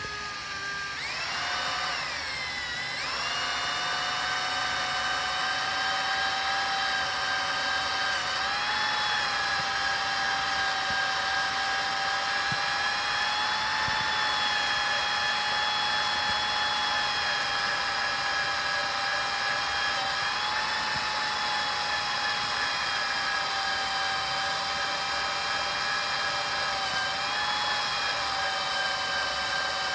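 Electric drill running at low speed, turning a reamer through the aluminium valve body's bore to ream it oversize for the actuator limit valve kit. It gives a steady motor whine that winds up over the first few seconds and then holds, dipping briefly in pitch three times as the reamer bites.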